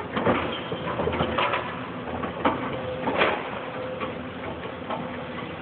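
Hydraulic excavator working in demolition rubble: its engine and hydraulics running under scattered knocks and clatter of brick debris.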